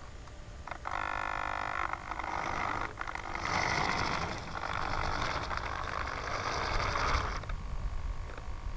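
Antenna tracker turntable driven by its pan servo, whirring as it swings round. It starts about a second in as a whine with several steady pitches, turns into a rougher whir that runs for several seconds, and drops away near the end. This happens when the plane's bearing takes the tracker through its pan servo end points.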